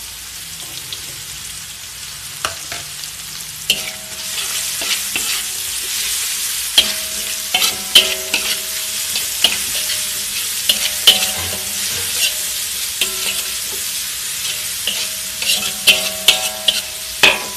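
Sliced chillies and spice paste frying in oil in a wok, sizzling, while a metal spatula stirs and scrapes them, clinking against the pan many times. The sizzle gets louder about four seconds in.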